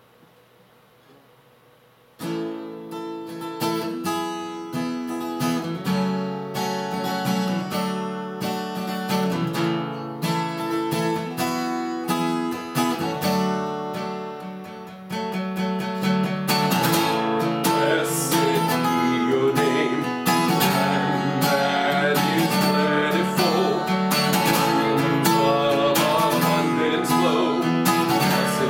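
Acoustic guitar music, plucked and strummed, starting about two seconds in after a brief hush and growing louder and fuller about halfway through.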